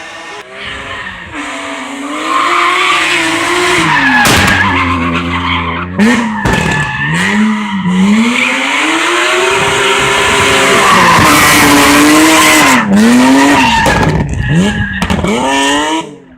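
BMW 1 Series (E87) with a swapped-in S54 3.2-litre straight-six from an E46 M3, revving hard and dropping again and again while drifting, with tyres squealing and skidding. The sound cuts off suddenly near the end.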